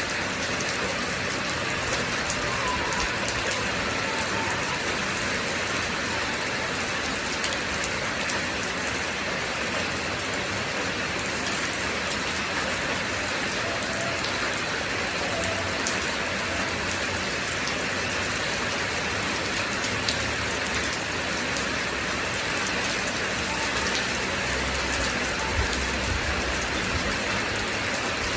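Steady rainfall, a dense even hiss with many individual drops pattering close by.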